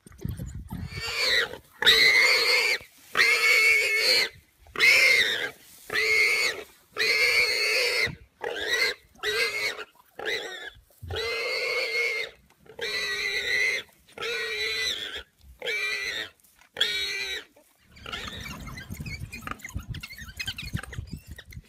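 A prey animal screaming in distress as African wild dogs attack it: loud, hoarse, pig-like calls, about one a second, stopping about three-quarters of the way through. After the calls end there is a rough, lower noise.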